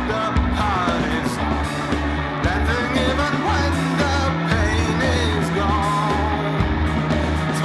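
Indie rock song: bass and drums keeping a steady beat under a wavering melodic lead line.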